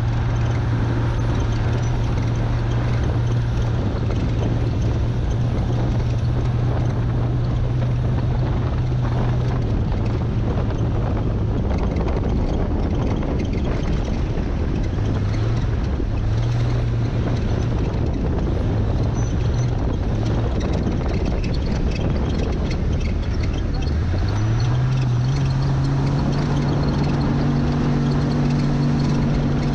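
Jeep Comanche race truck's engine running steadily on a dirt course, under heavy road and wind noise. The engine note drops out for a few seconds around the middle, then near the end climbs in pitch as the truck picks up speed.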